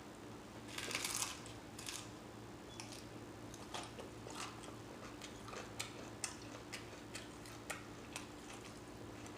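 A taco being chewed close to the microphone: a louder bite about a second in, then scattered soft mouth smacks and clicks, a few every second.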